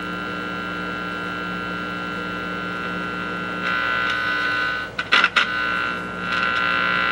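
Buzzing hum from the loudspeaker of a 1955 General Electric GE14T007 television while the centre terminal of its volume control is touched. This injects hum into the audio amplifier and shows that the audio output stage can make sound. The buzz grows louder about halfway through, breaks off with a few clicks as the contact shifts, and then comes back strong.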